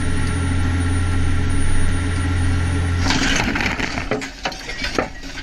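Fishing boat's engine running with a steady low drone, then about three seconds in a sudden crash followed by several sharp metallic bangs and clatters as a boom or mast falls onto the steel deck.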